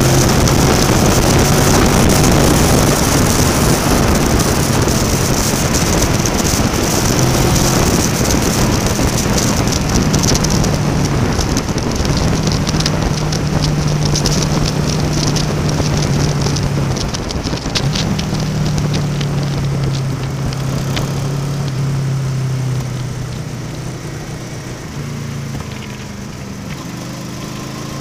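Honda VFR800's V4 engine running at steady cruising speed under heavy wind rush and road noise, its note holding level with small throttle changes. The sound eases off in the last few seconds as the bike slows.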